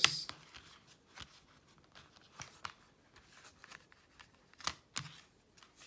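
Handling of a Blu-ray box set's plastic cases and packaging: a sharp click at the start, then scattered faint clicks and rustles.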